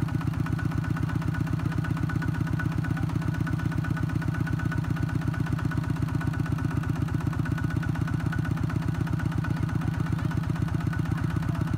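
Kubota ZT120 single-cylinder diesel engine of a kouyon two-wheel farm tractor running steadily, with a rapid, even beat of firing strokes.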